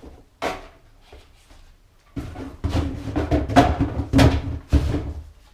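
A single knock, then a few seconds of loud scraping, rustling and knocking as a box and its packaging are handled and opened to get out an airsoft gun.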